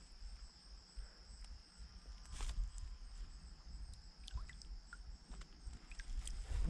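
Faint water sounds from a small rock bass being released by hand into a lake beside a kayak: a few soft drips and light splashes. Under them run a low rumble and a steady faint high-pitched hum.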